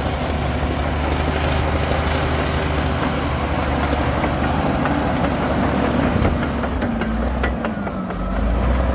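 Komatsu D60P bulldozer's diesel engine running steadily, with a few sharp metallic knocks in the second half and a brief dip in engine pitch near the end before it picks back up.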